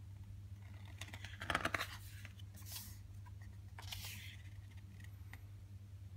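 A page of a glossy photobook being turned by hand: paper rustling and crackling, loudest about a second and a half in, with two softer rustles as the page is laid flat.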